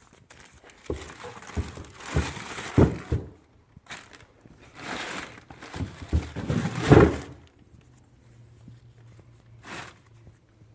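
Handling noise of parts being moved: knocks and scraping in two bursts of a couple of seconds each, with a single short scrape near the end.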